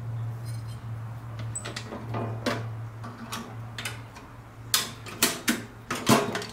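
Bent quarter-inch steel rod legs being slid into hinge-knuckle guides on a steel ammo-box wood stove: a series of metallic clicks and knocks, the sharpest and loudest ones coming in the last two seconds.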